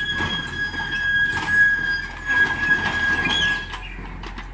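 Mini excavator working its boom and bucket, the bucket pressed into the ground to unload the machine from a tractor trailer: a steady high-pitched squeal from the machine with metal knocks and clanks, stopping shortly before the end.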